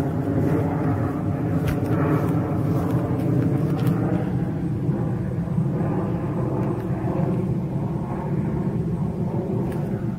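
Jet airliner flying overhead: a steady engine rumble that eases off slightly toward the end.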